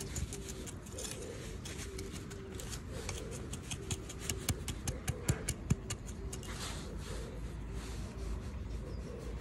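A small metal-bladed hand trowel scratching and digging into dry, crumbly soil: a run of gritty scrapes and sharp clicks, loudest about four to six seconds in. It is followed by softer rustling as soil is pressed by hand around a transplanted potato sprout.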